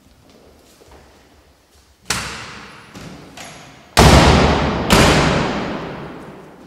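Heavy thumps or slams ringing out with a long echo in a large hard-floored hall. A strong one comes about two seconds in, followed by two lighter knocks and then the two loudest hits about a second apart.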